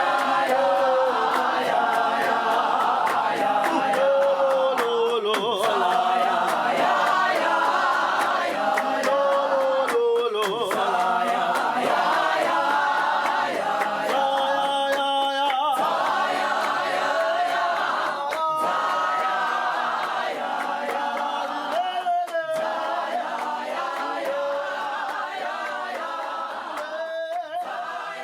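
Church choir singing a worship song together, the sound gradually fading out near the end.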